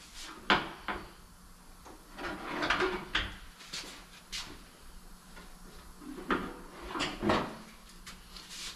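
Scattered light knocks, clicks and scuffs from hand work on a truck's front fender: sheet metal being handled and tools tapping at the fender while it is being fitted.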